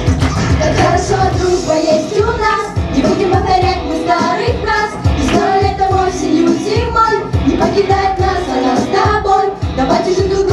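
A song: a child singing a melody over instrumental backing with a steady beat.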